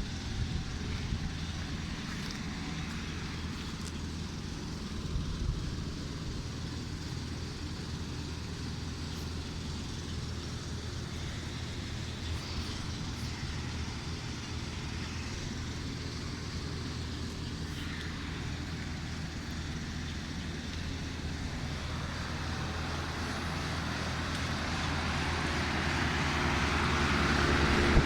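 Outdoor air-conditioner condensing units running: a steady low hum with a fan's rushing noise, growing louder over the last several seconds.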